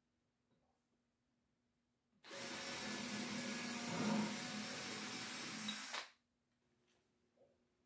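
Cordless drill drilling a hinge screw hole into poplar through an aluminium-angle locating jig. It starts about two seconds in, runs steadily for about four seconds and stops abruptly.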